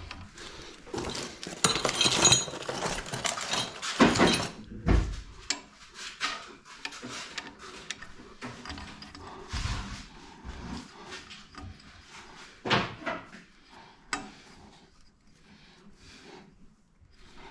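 Hands and tools working metal fittings: scraping, rubbing and light clinks of parts and wrenches, louder in the first few seconds and again around the middle, quieter near the end.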